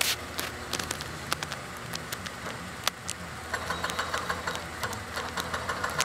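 Caterpillar excavator's diesel engine running, with scattered sharp clanks and knocks of machinery at work. A denser rattling note joins the engine about halfway through.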